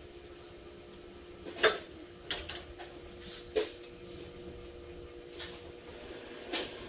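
Auto shop ambience: a steady hum with a few sharp knocks and clanks scattered through, the loudest about one and a half seconds in, then a quick pair about a second later.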